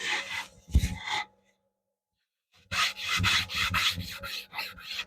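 Cloth rubbing wax into an oak surface: a few strokes, a pause of about a second, then quick back-and-forth strokes at about five a second.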